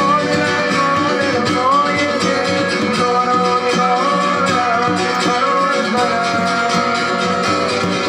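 A small acoustic band playing live: a violin melody gliding over guitars and a djembe hand drum, continuous and at an even level.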